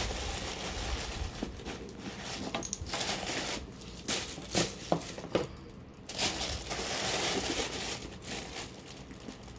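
Paper packaging rustling and crinkling as a handbag is unwrapped and handled, with a few short sharp clicks about halfway through.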